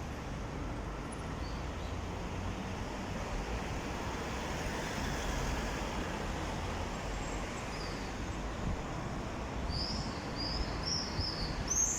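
Steady outdoor background rumble, with small birds starting to chirp in a quick series of high chirps near the end.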